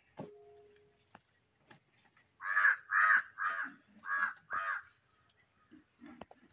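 A crow cawing five times in quick succession, starting about two seconds in.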